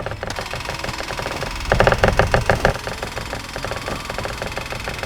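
Rapid, even mechanical knocking, about ten knocks a second, like an engine or motor clattering, loudest for about a second near the middle.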